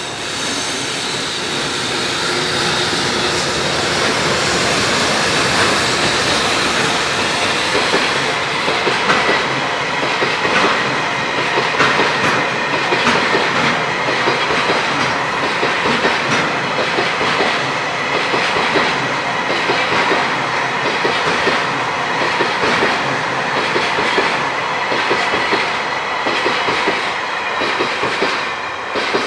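A JR Freight electric-hauled freight train passing close by, its wagon wheels clattering rhythmically over the rail joints; the noise builds over the first few seconds and then holds steady and loud.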